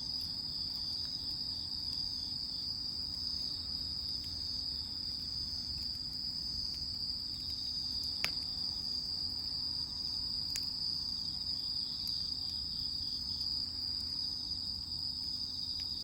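Crickets chirping in a steady, continuous high-pitched chorus, with two faint clicks partway through.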